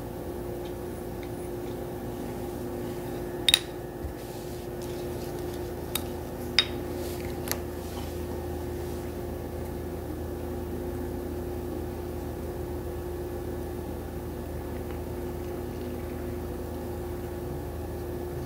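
A steady hum runs throughout. Over it come a few sharp clicks of a utensil knocking against a small ceramic bowl as paste is stirred, the loudest about three and a half seconds in and again just before seven seconds.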